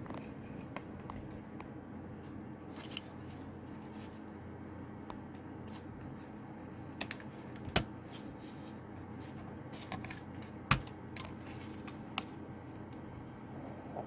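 Small plastic clicks and taps as fingers work the flat ribbon-cable connectors on a laptop motherboard, scattered through, with two sharper clicks around the middle, over a steady low hum.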